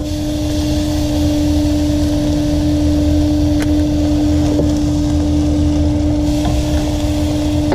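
Steady drone of a running motor, one constant hum over a low rumble, with a light hiss above it.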